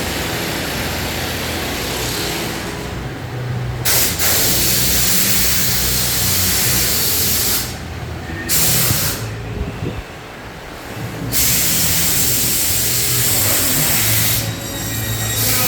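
Loud hissing machine noise over a steady low hum, breaking off briefly about four times and starting again.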